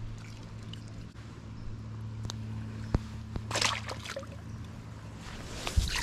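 Shallow river water splashing as a hand-caught smallmouth bass is let go into it: a short splash about halfway through and a louder one near the end. A few sharp clicks come just before the first splash.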